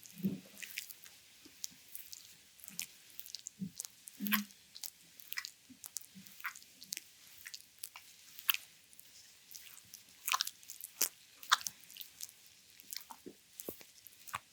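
Oiled hands massaging a bare belly: irregular wet squelches, smacks and crackly clicks of slick skin. A couple of short low stomach gurgles come through near the start and about four seconds in.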